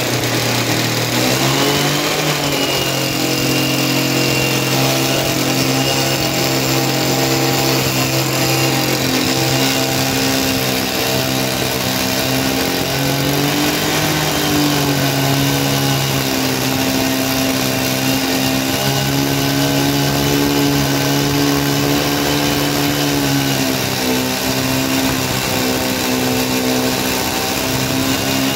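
Two-stroke chainsaw running at high speed, cutting through a pine log; its steady pitch dips briefly a couple of times as the chain bites into the wood.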